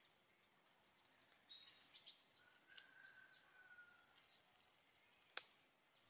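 Near silence with faint bird chirps and a drawn-out whistled bird call, and one sharp click about five seconds in.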